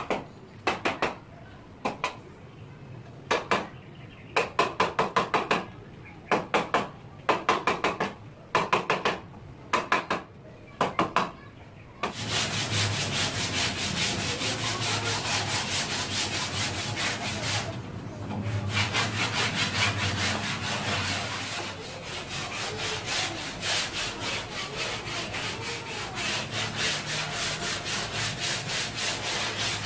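Wooden tabletop being sanded by hand with quick back-and-forth rubbing strokes. The strokes come in short runs with pauses at first, then run on steadily from about twelve seconds in.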